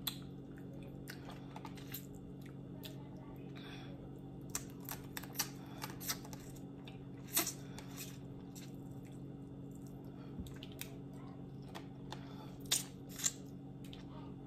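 Eating crawfish: scattered small clicks and crackles of shells being cracked and peeled, with chewing, over a steady low hum.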